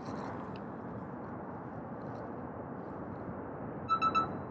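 Three quick electronic beeps from a GoPro action camera about four seconds in, over a steady outdoor hiss of wind and water.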